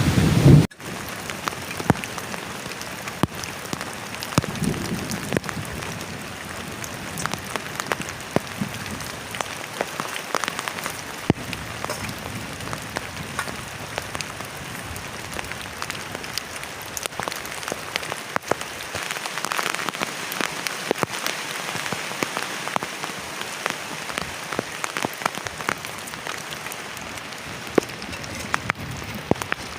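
Heavy rain drumming steadily on a plastic tarp shelter, with many sharp separate drop hits standing out from the hiss. At the very start a brief blast of wind noise on the microphone cuts off suddenly.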